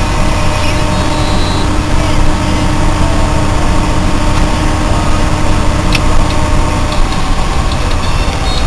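Engine of an old Mercedes-Benz W111 running steadily, a constant low rumble with no change in speed.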